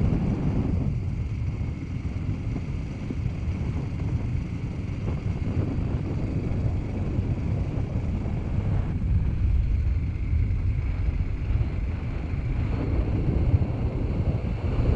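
Wind buffeting the microphone of a moving KTM 500 motorcycle, with the bike's engine running steadily underneath on a dirt-road ride.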